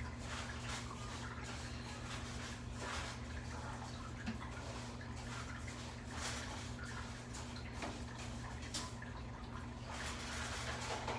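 Juvenile Nile monitor lizard eating a toad: irregular soft clicks and crackles of its jaws working on the prey, over a steady low hum.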